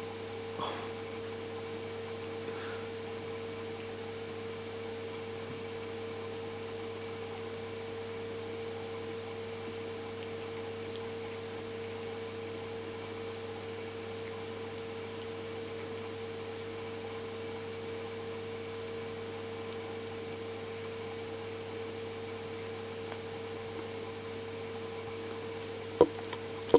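A steady electrical hum throughout, with one sharp click or knock near the end.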